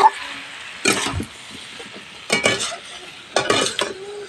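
Metal spatula scraping and stirring potato and carrot pieces frying in oil and masala in a steel kadhai, in about four separate strokes, over a faint sizzle.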